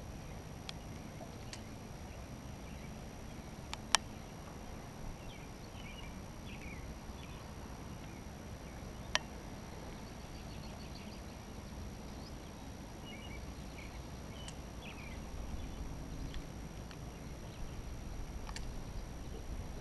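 Quiet outdoor ambience on the river: a steady low rumble with faint scattered bird chirps, broken by two sharp clicks about four and nine seconds in.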